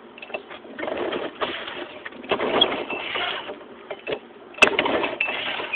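Lawn-Boy S21ZSR mower's two-stroke F-series engine being pull-started: several rasping pulls of the recoil starter cord, each about a second long, with a sharp click as the last one begins, and the engine does not catch.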